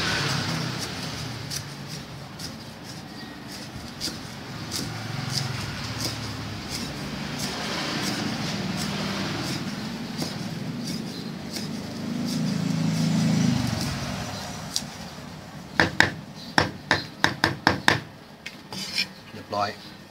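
Cleaver chopping kaffir lime leaves finely on a thick wooden chopping block. Light taps through most of it, then a quick run of about ten sharp chops on the wood near the end.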